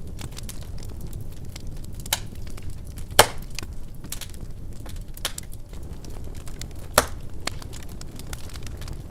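Wood fire burning in a fireplace: a steady low rumble of flames with frequent small crackles and two sharp, louder pops, about three seconds in and about seven seconds in.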